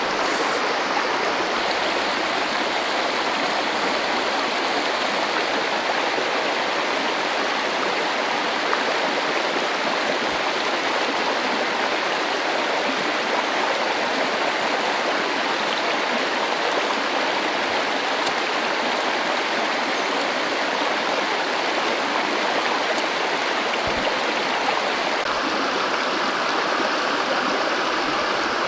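Shallow stream running over rocks and small rapids: a steady, even rush of flowing water.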